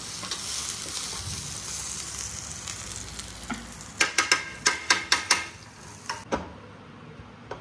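Butter sizzling in a hot frying pan as a steady hiss, then a quick run of about seven sharp clicks and knocks around the pan about four seconds in, with two more single knocks near the end.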